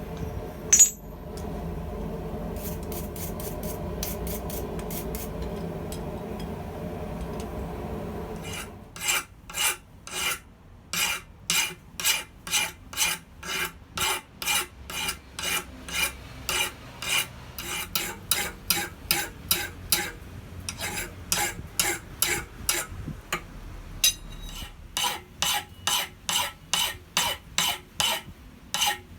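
A steady machine hum with one sharp hit about a second in, then a hand file worked over a forged steel hammer head in long, even back-and-forth strokes, nearly two a second, for the rest of the time.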